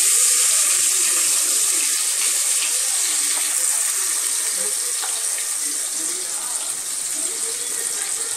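Sliced onions sizzling in hot ghee and coconut oil in an aluminium pressure cooker: a loud, steady hiss that starts suddenly as they go in and slowly eases.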